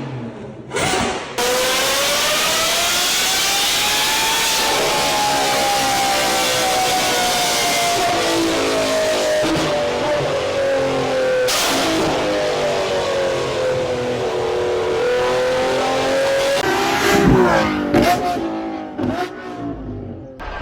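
Lamborghini Revuelto's V12 through an aftermarket exhaust, at full throttle. It comes in suddenly and loud, rises in pitch for a few seconds, then eases slowly down while staying loud. Near the end come a few quick revs up and down with sharp cracks before it fades.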